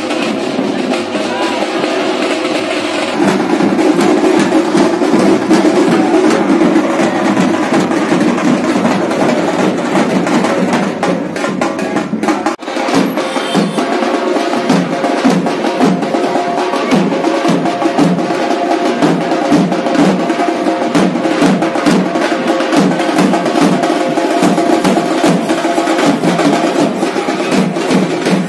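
Group of street drummers beating stick-played drums, including a snare drum, in a fast, dense, loud rhythm. The drumming drops out for an instant about twelve seconds in, then carries on.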